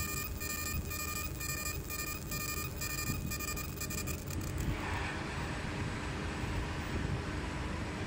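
A 20 W fiber laser marking machine engraving bismuth telluride makes a high-pitched pulsing tone, about three pulses a second, as the beam works the metal. It stops about four and a half seconds in, leaving a steady hiss over the machine's low hum.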